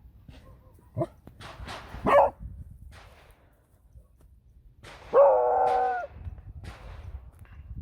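Beagle giving a short yelp and then a bark, followed by a long, drawn-out bay of about a second, the loudest sound. Faint sharp cracks of distant gunshots from a shooting range fall in between.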